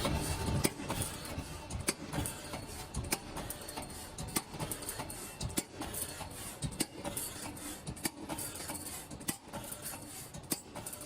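Hydraulic CNC pipe punching machine auto-feeding a steel tube and punching holes. Its steady running noise is broken by sharp punch strokes at uneven spacing, roughly one a second.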